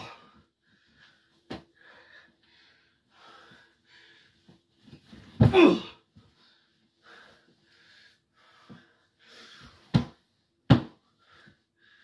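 A man panting hard from exertion, a short breath every half second or so, with a loud "oh" about five and a half seconds in. Two sharp thumps come near the end.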